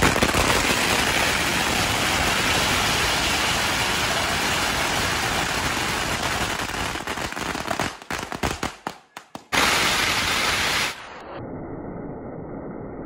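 A long string of firecrackers going off in a rapid, continuous crackle. It sputters into separate bursts with short gaps about eight seconds in, then comes back loud in a final run. Near the end it gives way to a quieter, muffled noise.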